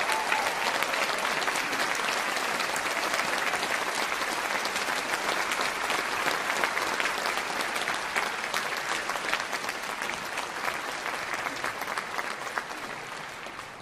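Audience applauding, a dense clapping that starts to thin out about halfway through and dies away near the end.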